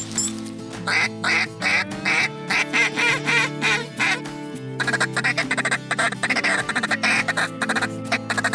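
Duck quacking: a series of loud quacks, about two a second, then from about five seconds in a faster run of short, rapid notes, over background music.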